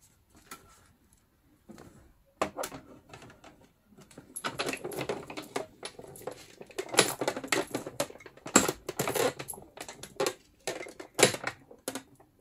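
Sizzix Big Shot manual die-cutting and embossing machine being hand-cranked, rolling the plates and embossing folder through its rollers: irregular clicking and knocking that starts about two seconds in and gets busier about halfway through.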